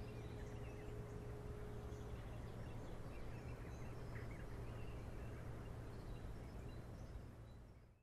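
Small birds chirping over a steady low outdoor rumble, with the thin steady tone of a distant E57 motor siren dying away about two seconds in as its fire-alarm signal ends. The sound fades out near the end.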